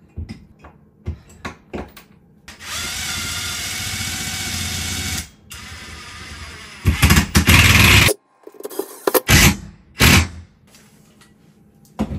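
Skil cordless drill driving screws to fix an expansion-tank bracket to the wall. A steady motor run starts about two and a half seconds in, and a louder, harsher run about seven seconds in stops abruptly. Clicks and knocks from handling the bracket and screws come before and after.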